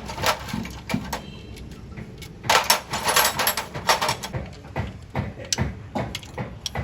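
Metal tools clinking and knocking on engine parts during engine teardown, with a dense clatter in the middle and then a run of single knocks about three a second.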